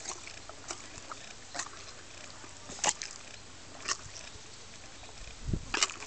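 A horse's muzzle and lips working close against the microphone: scattered sharp clicks and knocks about once a second, with a deeper thump followed by the loudest clicks near the end.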